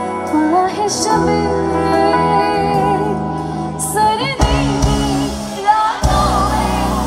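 A woman singing live through a PA, backed by a band of electric guitars, keyboard and drums. Cymbal crashes come about a second in and again near four seconds, where the bass and drums grow heavier.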